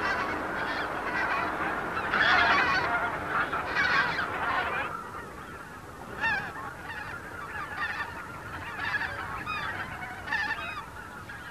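A flock of wild geese calling in flight. A dense chorus of overlapping calls thins about five seconds in to scattered single calls.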